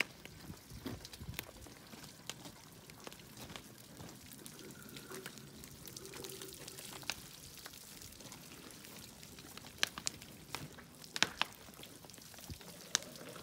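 Water poured from watering cans splashing and pattering onto a hot iron wheel tyre and wooden cannon wheel, cooling the tyre so it shrinks tight onto the felloes. Scattered sharp clicks stand out, several close together near the end.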